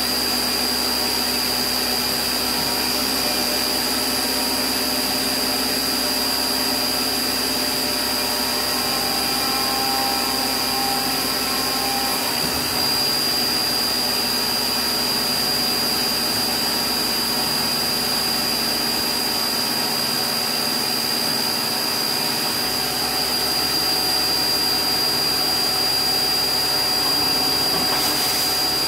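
LMW JV Kraft 5-axis vertical machining centre running a milling cycle on a lathe cutting tool: a steady high spindle whine over a constant whirring hiss. Near the end a burst of coolant spray joins in.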